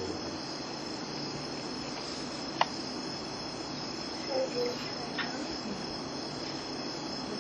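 Crickets chirping in a steady, high, unbroken chorus. A single sharp click cuts through about two and a half seconds in.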